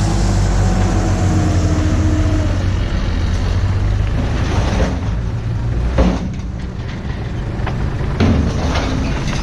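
A vehicle's engine and road noise running steadily, with a single sharp knock about six seconds in.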